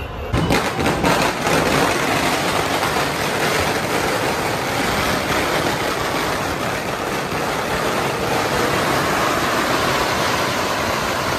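A long string of firecrackers going off. For about the first second the bangs come sharp and separate; after that they run together into a dense, steady crackle.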